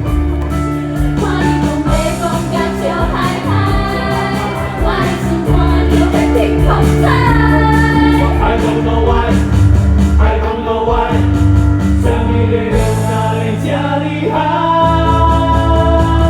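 Musical-theatre song sung by several voices over a live band with a steady beat.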